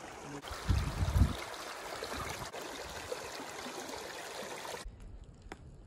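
Steady rushing of a mountain stream, with a few low thumps about a second in. It cuts off abruptly near the end, leaving a low rumble and a few faint clicks.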